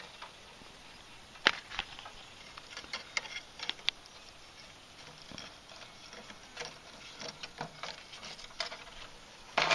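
Metal kitchen tongs clicking and scraping against a foil baking pan and the rod of bacon as the pan is drawn out of a solar oven's glass tube: scattered light clicks and foil rustles, a sharper click about a second and a half in, and a cluster of louder clicks at the very end.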